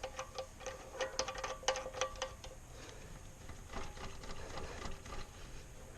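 Light, rapid clicking and rattling of a pressure washer hose fitting being pushed in and screwed tight by hand, busiest in the first couple of seconds and then a few scattered clicks.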